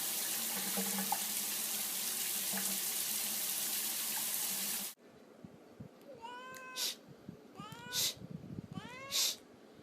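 Steady rush of running water from a tap. After a sudden cut about five seconds in, a cat meows three times, each meow rising in pitch.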